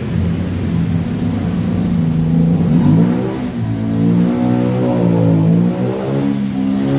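Small motorcycle engine running: it idles steadily, then from about three seconds in it is revved up and down several times.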